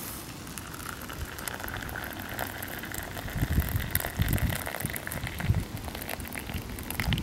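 Water poured from a metal pot in a steady stream into a collapsible cup of ground coffee, splashing and frothing as it fills to brew coffee; the pitch of the pour rises a little as the cup fills, and the pour stops near the end.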